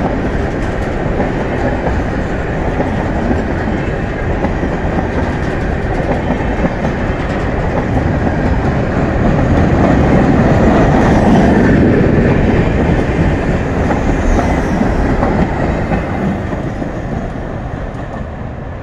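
Freight cars of a long train, tank cars and grain hoppers, rolling past close by with their wheels rumbling steadily over the rails. The sound is loudest about halfway through, then fades near the end as the tail of the train goes by.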